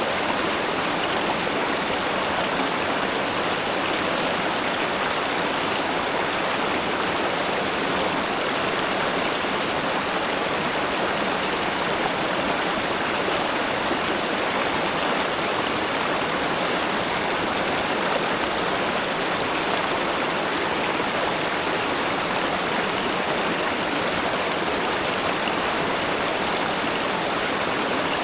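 River water flowing steadily, an even, unbroken rushing with no change in level.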